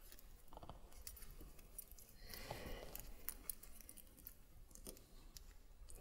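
Faint small metal clicks and clinks of a dog carrier's tether clip being fastened to a small dog's collar.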